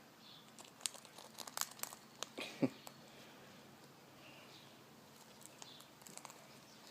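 Galah cracking sunflower seeds in its beak: a run of sharp crunches and clicks for a couple of seconds, then a few faint ticks.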